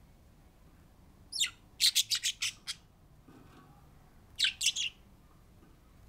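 Pet budgerigar chirping: a quick run of sharp, high chirps about a second in, then a shorter burst of three or four a couple of seconds later.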